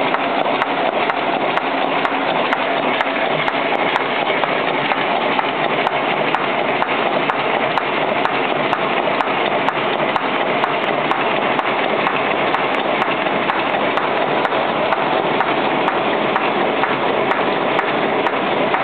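XTJ-400 envelope flap gluing machine running continuously: a steady mechanical clatter with sharp clicks scattered through it, as the envelopes are fed through, gummed and dried with hot air.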